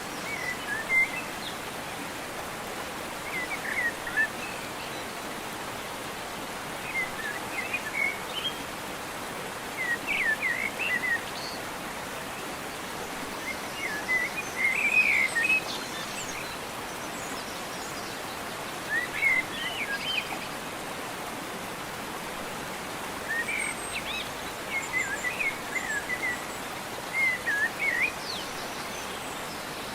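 A songbird chirping in short, quick phrases every few seconds over a steady background hiss of outdoor ambience.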